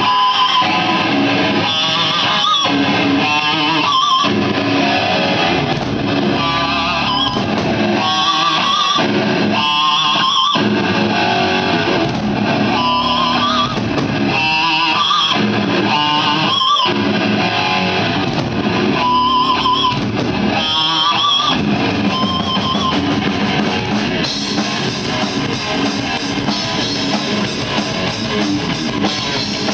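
Heavy metal band playing live, led by loud distorted electric guitar riffing; the riff stops short for a moment several times.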